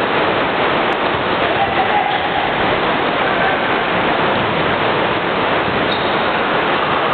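Steady, loud rushing din of a basketball game in a large echoing indoor gym, players' and spectators' voices and court sounds blurred into one even wash of noise.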